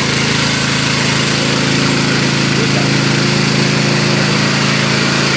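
Small Robin petrol engine driving a water pump, running steadily at a constant speed while it pumps floodwater out of a house.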